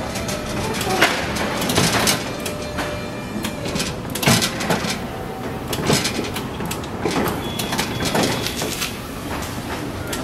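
Electric pallet truck manoeuvring against a rack-end barrier, with irregular sharp clanks and knocks about once a second over steady machine and warehouse noise.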